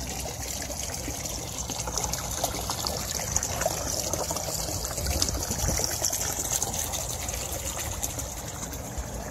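Water trickling steadily from a custom rock waterfall into a pond, the flow driven by canister filters cycling the pond water.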